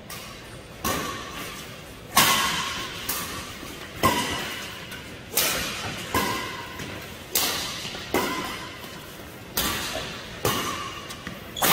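Badminton doubles rally: rackets strike the shuttlecock about a dozen times, roughly once a second. Each hit is a sharp crack with a brief string ring, echoing in a large hall.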